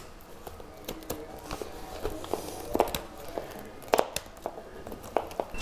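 Blade cutting through a Hypervent mat's tangled plastic-filament mesh along a metal straightedge: irregular small clicks and snaps as the strands part, two of them sharper, near the middle and about four seconds in.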